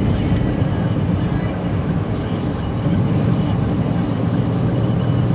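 Steady, continuous low rumble of a running vehicle, with no sudden changes.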